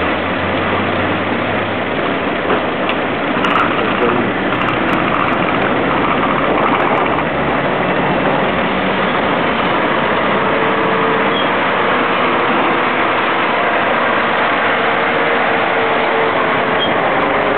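Diesel engines of DAF articulated lorries running as the tractor units drive slowly past, a steady engine noise that holds an even level throughout.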